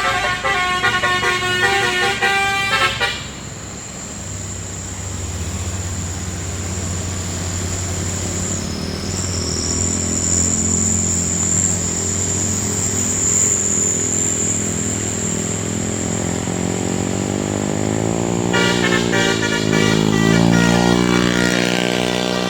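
A truck's telolet multi-tone horn plays a quick run of stepped notes for about three seconds, then cuts out, leaving the truck's engine running steadily. Near the end, pitched tones return, sliding up and down.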